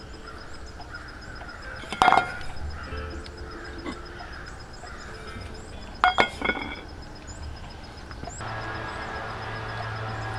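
Telephone hold audio playing over a phone's speakerphone: faint music with two short, louder sounds about two and six seconds in, and a steady low hum joining about eight seconds in.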